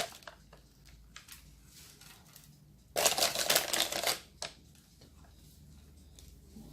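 Dry rolled oats rattling and rustling as they are shaken out of their packet onto the dough. The burst lasts about a second and a half near the middle, with a few light clicks before it.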